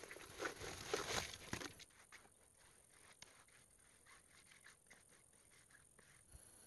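Wet cement mortar poured out of a basin into a brick enclosure, a short sloppy pour over the first two seconds. A trowel then spreads and smooths it, with faint small scrapes and taps.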